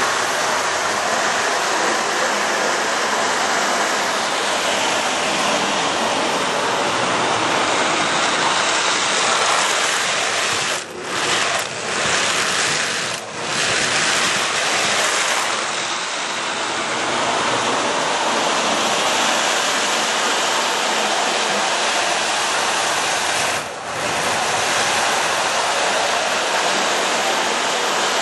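Marx 1666 toy steam locomotive running on FasTrack: a steady mechanical rushing of its motor, gears and wheels on the track, dipping briefly a few times.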